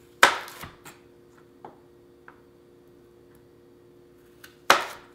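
Chef's knife chopping through sweet potato and hitting the cutting board: two sharp chops, one just after the start and one near the end, with a few light knocks in between.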